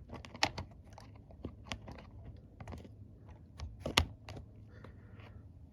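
Irregular light clicks and taps of plastic model railway coaches being handled, with their magnetic couplers snapping together; one sharper click about four seconds in.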